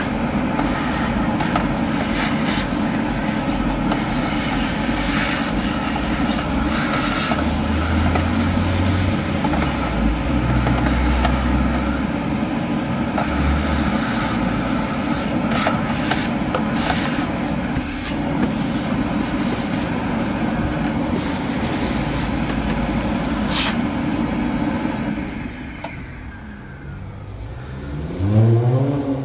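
Vacuum cleaner running steadily while its nozzle cleans out an empty plastic car air-filter housing, with scattered clicks and knocks against the plastic. It cuts off about 25 seconds in, and near the end a rising whine sounds as a motor spins up.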